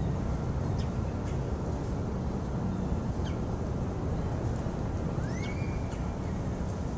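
A few short bird calls over a steady low rumble, with a longer call about five seconds in that rises and then holds.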